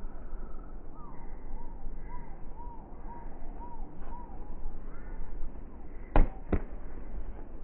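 Two sharp slaps of a volleyball being struck about six seconds in, a third of a second apart: the attack and then the block off the hands. Earlier, a bird calls in a run of short rising-and-falling notes, about two a second.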